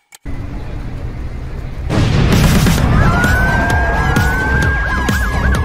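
A loud, deep rumble starts suddenly and jumps louder about two seconds in. About three seconds in, a siren begins wailing over it in slow rising and falling sweeps.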